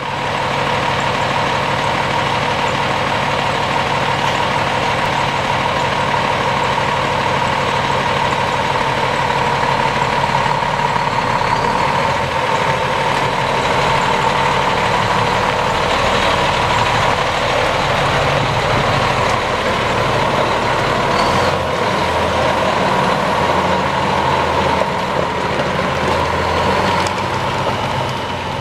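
Cummins ISM diesel engine of an International 9200i truck tractor running as the truck drives slowly across gravel, a steady engine note with a high steady whine over it, easing off slightly near the end as it pulls away.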